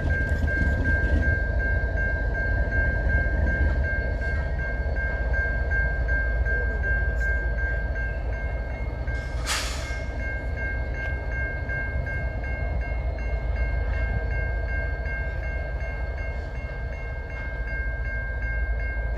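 Diesel freight locomotives, a CN ES44DC and an SD70M-2, rumbling as they make a slow reversing move, with a steady high-pitched bell ringing throughout. A short hiss comes about halfway through.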